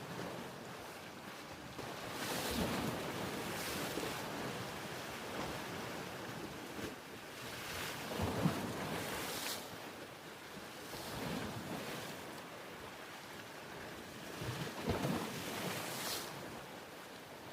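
Ocean waves washing in and drawing back, a steady rushing that swells into a louder surge every few seconds.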